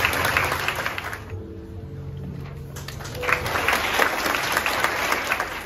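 Applause: many hands clapping, in two rounds, the first dying away after about a second and the second starting about three seconds in and stopping near the end, over faint background music.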